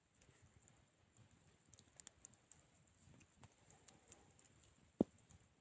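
Campfire crackling faintly, with scattered small snaps and one sharp louder pop about five seconds in.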